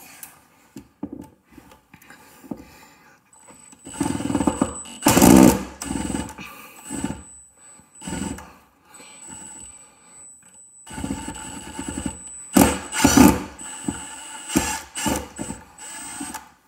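Milwaukee M18 Fuel impact driver hammering screws into a block of wood in several short runs with pauses between, starting about four seconds in, the longest run near the end.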